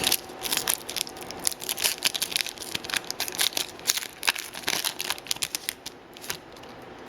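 Wrapper of a hockey trading-card pack being torn open and crinkled. A dense run of crackles lasts about five seconds, then only a few scattered ones follow.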